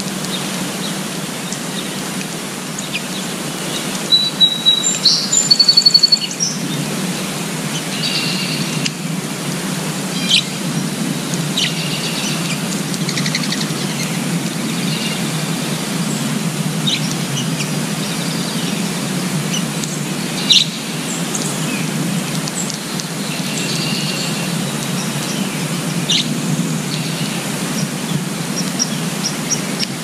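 Small songbirds chirping and calling in short scattered notes, with a loud rapid trill of repeated notes about four seconds in, over steady outdoor background noise.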